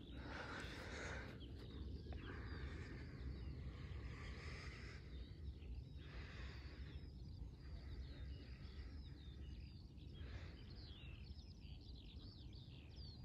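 Faint birdsong: many small birds chirping and twittering, busiest near the end. Underneath is a steady low rumble, with several swells of rushing noise that each last a second or two.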